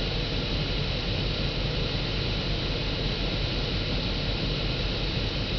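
Steady road noise inside a moving car's cabin: an even hiss over a low tyre and engine rumble as the car drives along.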